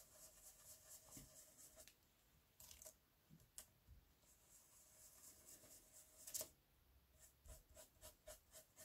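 Faint, quick scrubbing of a small makeup brush dabbing Distress ink through a stencil onto paper, in short runs of strokes with a few single scrapes, the loudest about six seconds in.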